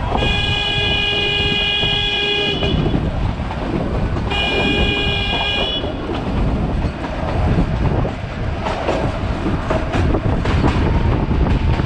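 Diesel locomotive horn of the Nilgiri Mountain Railway train sounding two blasts: a long one of about two and a half seconds, then a shorter one about four seconds in. Under it runs the steady noise of the moving train, with wheel clicks on the rails later on.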